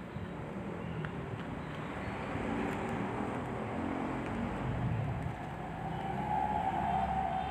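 Handheld heat gun blowing steadily as it heat-shrinks window tint film onto a car's rear glass, mixed with passing road traffic that swells in level, with a humming tone rising toward the end.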